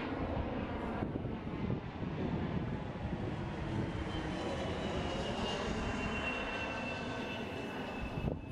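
Steady mechanical drone over a low outdoor rumble, with a faint high whine that slowly falls in pitch in the second half, cut off abruptly just before the end.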